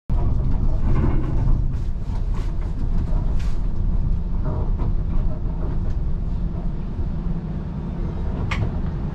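Steady low rumble of a TTC streetcar, setting in abruptly, with scattered light clicks and rattles and one sharper click near the end.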